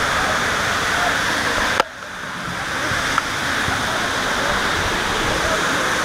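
Steady rushing roar of a nearby waterfall. About two seconds in a sharp click is followed by a brief drop in the sound, which swells back over a second or so, and a smaller click comes a little later.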